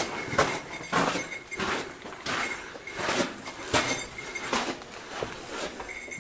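Footsteps crunching and scuffing on gritty sandstone and sand, an uneven step roughly every half second to second, mixed with the rub and knock of a handheld camera.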